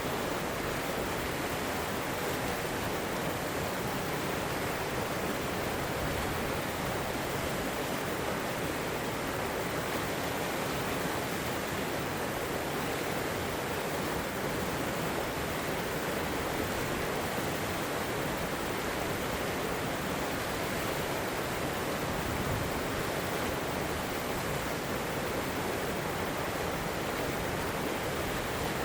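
Shallow river water rushing and splashing over rocks, a steady even rush with no pauses.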